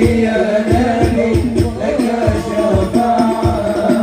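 Live sholawat: male voices singing a devotional melody through microphones, over a steady drum beat of about three strokes a second.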